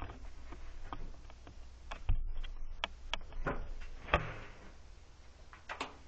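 Scattered light clicks and knocks, with two heavier thumps about two and four seconds in.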